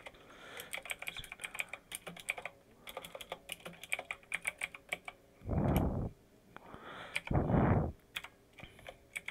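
Typing on a computer keyboard: a run of quick key clicks while a line of text is entered, with a few more clicks near the end. About five and a half and seven and a half seconds in come two short, loud whooshes of rushing noise, louder than the typing.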